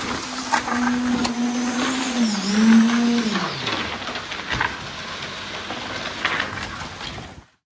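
A small electric motor runs with a steady whine over a coarse hiss, its pitch dipping a little over two seconds in and falling away after about three seconds, with scattered clicks; the sound cuts off suddenly near the end.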